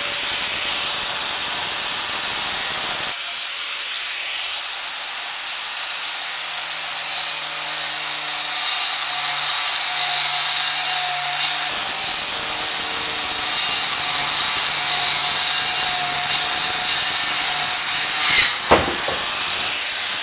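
Electric angle grinder with a wood-cutting blade running at full speed with a high whine and cutting into a wooden board. It grows louder about seven seconds in as the blade bites, and there is a sharp knock near the end.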